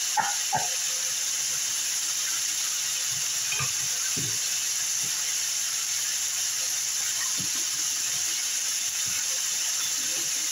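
Diced chicken breast frying in oil in an electric skillet, sizzling steadily, with a few faint clicks and knocks in the first half.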